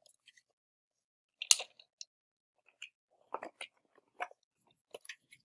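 Foam darts being pushed one by one into the plastic rotating cylinder of a Nerf Strongarm blaster: scattered clicks and plastic taps. The loudest is a sharp click about a second and a half in, followed by a run of smaller clicks.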